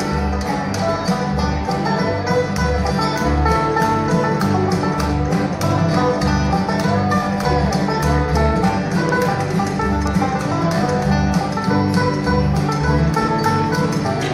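Acoustic bluegrass band playing an instrumental passage with no singing: a five-string banjo picking a fast lead over strummed guitars, mandolin, fiddle and accordion, on a steady even rhythm.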